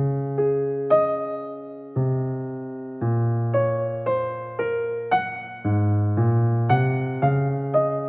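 Background piano music: notes and chords struck at an unhurried pace, each left to ring and fade.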